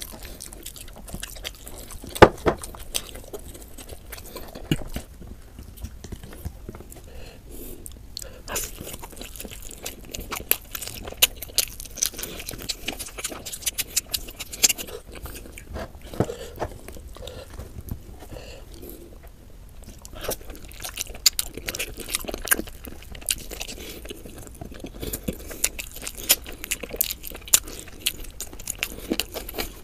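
Close-miked chewing and mouth sounds of a person eating roast chicken and biryani by hand: irregular clicks and smacks, the loudest a sharp click about two seconds in.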